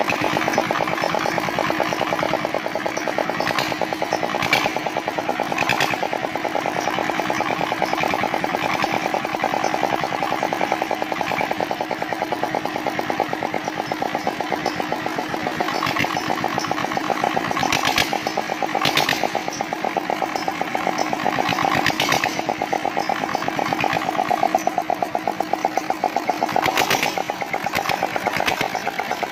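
Freshly overhauled Dongfeng R175A single-cylinder diesel engine running steadily, its fast even firing beat going throughout, with a few sharper knocks now and then.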